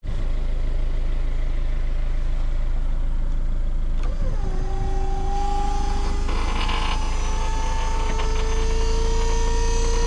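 Heavily loaded truck's engine running with a steady low rumble. About four seconds in a whine sets in, dips briefly, then climbs slowly in pitch.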